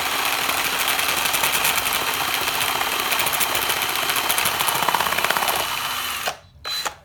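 Drill spinning the crankshaft of a LEGO chainsaw, the plastic blade and bricks clattering rapidly under a steady motor whine. It stops suddenly about six seconds in, with one short burst of running near the end.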